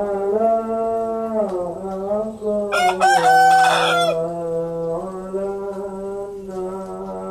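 A rooster crows once, about three seconds in, for just over a second, over background music of long held notes.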